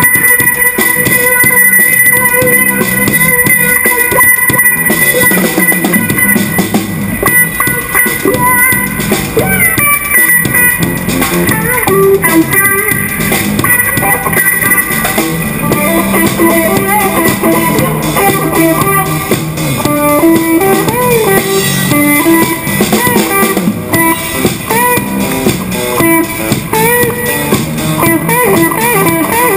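Live street band: guitar and drum kit playing together, with no singing. From about ten seconds in the guitar plays a lead line with notes bending in pitch.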